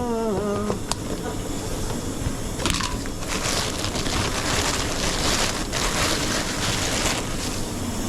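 Commercial kitchen background noise, then a tap turned on about three seconds in, water running steadily into a sink.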